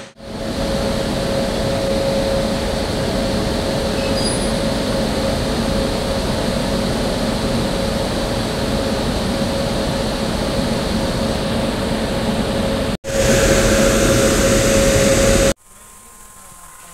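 WAG-9 electric locomotive running its cooling blowers at a standstill: a loud, steady rushing hum with one constant whine over it. It cuts off about 13 seconds in, returns for a couple of seconds, then drops to a faint low background near the end.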